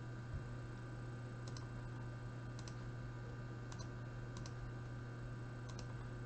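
Computer mouse clicking, a handful of short clicks, several in quick pairs, spread over a few seconds, over a steady low hum.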